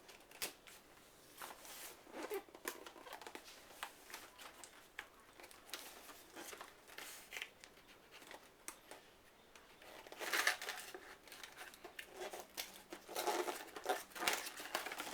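Cardboard box and plastic packaging being opened by hand: crinkling, tearing and scraping with scattered small clicks. It gets louder about ten seconds in and again near the end.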